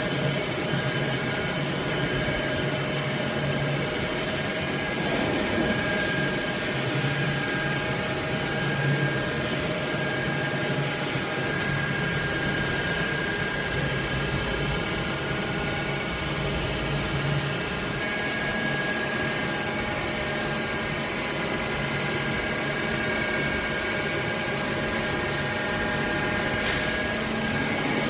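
Steady machine noise of a CNC machine shop: a running machine's low hum with several high whining tones held steady.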